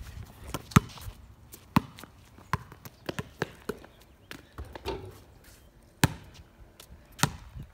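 Basketball bouncing on a concrete driveway: sharp, irregular bounces, roughly one a second.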